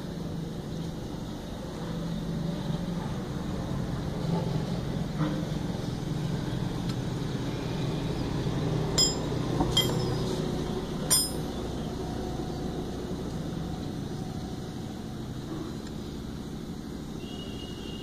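Three sharp metallic clinks about half-way through, as a tool and the pin bolt of a Honda Shine's front disc brake caliper are handled. A low, steady background rumble of road traffic runs underneath.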